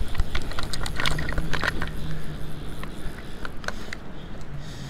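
Irregular clicks and rattles of a fly reel and rod being handled, thickest in the first couple of seconds, over a steady low hum that begins about a second in.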